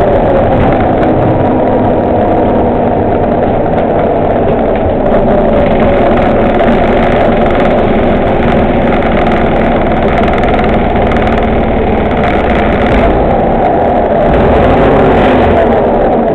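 MCW Metrobus Mk2 double-decker's engine and drivetrain running steadily as the bus drives, heard from the lower-deck passenger saloon, with a whine that rises and falls slightly and gets a little louder near the end.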